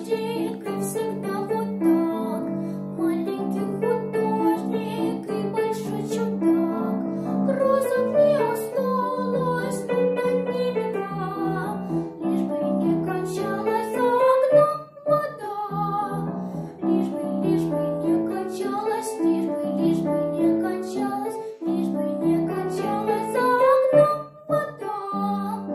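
A girl singing with piano accompaniment.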